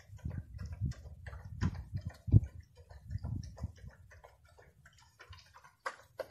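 Kangal dog eating from its bowl: an irregular run of small clicks and crunches with soft low knocks, the loudest knock about two and a half seconds in.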